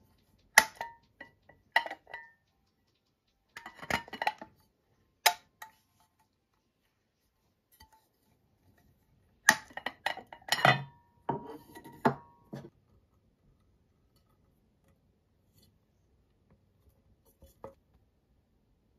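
Pans and a glass lid from a nesting cookware set clinking and knocking as they are handled, with a detachable clip-on handle being clamped to a pan rim. The clinks come in several separate clusters, the sharpest ringing briefly, with quiet between.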